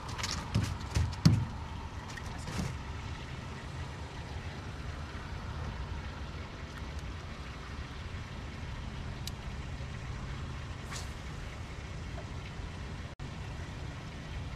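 A few sharp knocks and clatters of gear being handled on a fishing boat in the first three seconds, the loudest about a second and a half in, over a steady low rumble.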